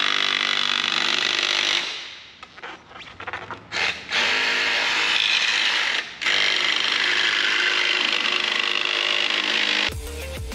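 Electric drill running in three long bursts, with a pause of small clicks and knocks between the first two, drilling out the rivets that hold a factory door-speaker bracket. Music with a heavy beat comes in near the end.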